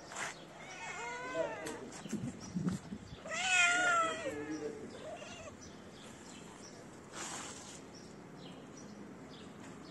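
Calico cat meowing twice, the second meow louder and longer, about three and a half seconds in.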